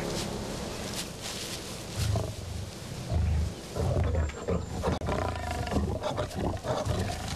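Siberian tigers growling: a string of short, deep growls starting about two seconds in.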